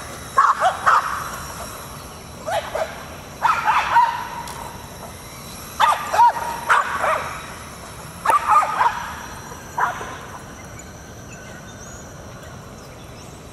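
Boston terriers barking and yipping in quick bursts of several barks each, with short pauses between bursts. The barking stops about ten seconds in.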